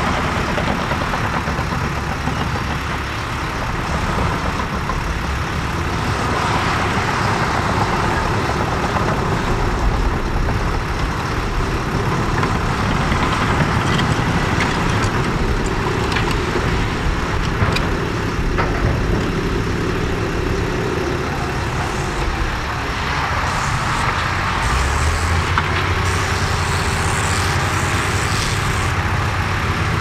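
Cat D6N bulldozer's diesel engine running steadily under working load, with a few light clanks midway and a lower, steadier engine tone over the last few seconds.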